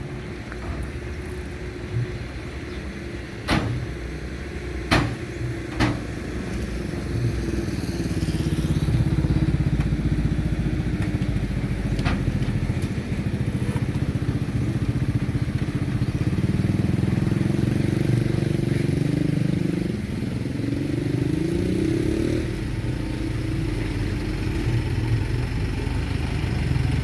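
Large vehicle engine running, its pitch rising and falling as it revs and eases off, with a few sharp knocks in the first six seconds.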